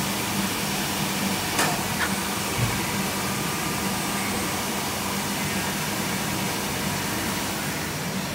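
Citizen Cincom L32 sliding-head CNC lathe powered up, giving a steady mechanical hum and hiss. A few light clicks and a soft thump come about two seconds in.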